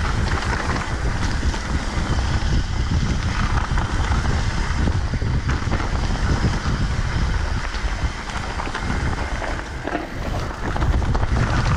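Wind buffeting the microphone over a mountain bike's tyres running on a rough trail at speed: a continuous rumble with dense clatter.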